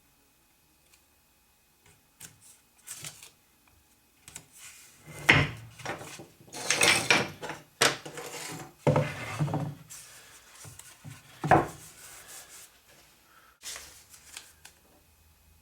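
Irregular knocks, rubbing and scraping of materials being handled and worked by hand, with two sharper knocks about five and eleven seconds in.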